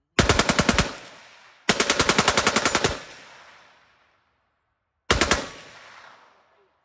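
Browning M1919D belt-fed machine gun firing short bursts at about ten rounds a second: a burst of about seven shots, a longer one of about a second, a brief one near the end and another just starting. Each burst trails off in a long echo.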